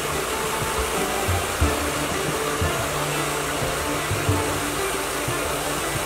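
Steady whirring of a Wood-Mizer LT40 hydraulic sawmill running. Background music with a regular low beat plays over it.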